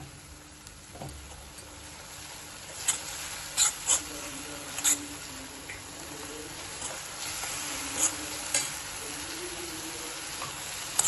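Ginger-garlic paste, green chilli paste and onions sizzling quietly in oil in a pan while a steel spoon stirs them, scraping and knocking against the pan in a few sharp clicks, the loudest about three to five seconds in.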